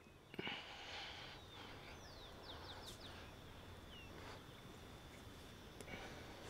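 Faint outdoor ambience: a steady low hiss with a brief rustle about half a second in, and a bird giving a run of quick, falling chirps about two to three seconds in.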